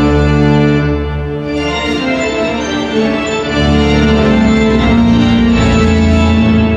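Music with sustained organ-like chords over a deep bass line, played back through a restored 1980s AUDIOMOBILE car-audio amplifier system. The bass shifts to new notes about a second and a half in and again a little past halfway.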